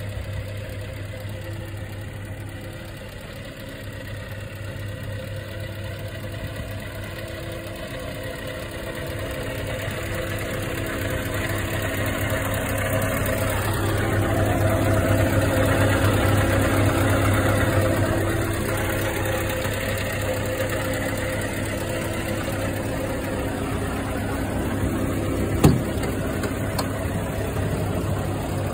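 Scania R580's V8 diesel engine idling steadily, louder for a few seconds in the middle. A single sharp knock near the end.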